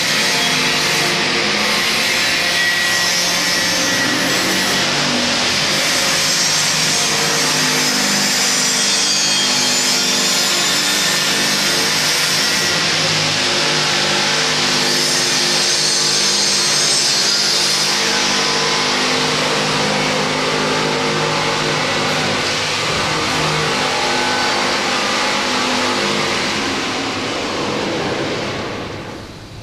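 Steady, loud workshop machinery running: a continuous hiss with several steady hum tones beneath it, which fades off near the end.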